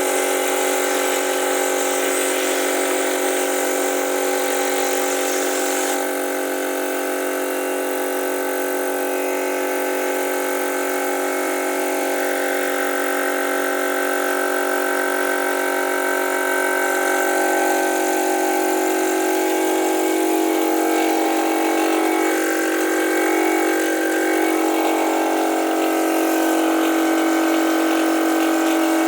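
Compressed-air vacuum gun running, steady hissing airflow with several steady tones, as it draws wet sand up its hose. About six seconds in the highest part of the hiss drops away, and past the middle the tones change and grow a little louder.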